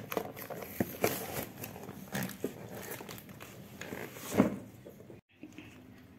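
Hands handling a cardboard shipping box and its packing tape: scattered rustles, scrapes and taps, with one louder knock about four and a half seconds in.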